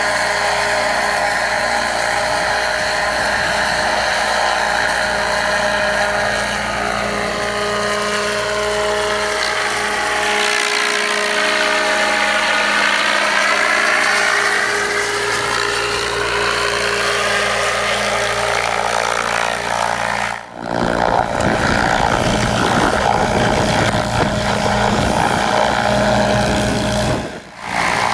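Light helicopter hovering with a floodlight mast slung on a long line, its rotor and turbine making a loud, steady drone. Around the middle the tone sweeps down and back up as it passes close overhead.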